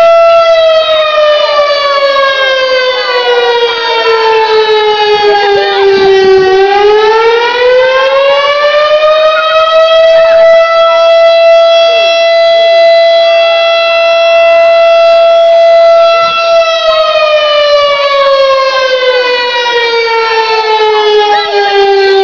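Fire station siren sounding the fire alarm. It holds a steady tone, falls in pitch over about six seconds, climbs back over about four, holds for about six more, and falls again toward the end.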